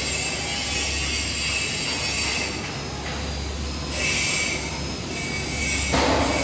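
OTC robotic arc-welding cell running: a steady hum under a high hiss that switches on and off in stretches of a second or two as the torch welds and moves between steel posts, with a short louder crackle about six seconds in.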